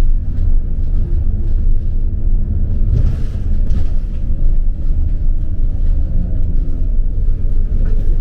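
Steady low rumble of a vehicle in motion, with a faint hum above it and a few light knocks about three seconds in.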